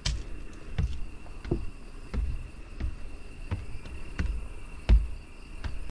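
Footsteps climbing wooden stairs, a dull thud about every two-thirds of a second, over a steady high insect buzz.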